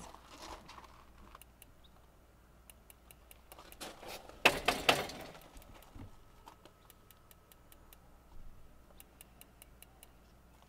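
RV absorption refrigerator's propane spark igniter clicking repeatedly, a few sharp clicks a second, trying to light the burner, which does not catch: the owner suspects a dirty igniter. A louder brief rustle of handling noise about halfway through interrupts the clicking.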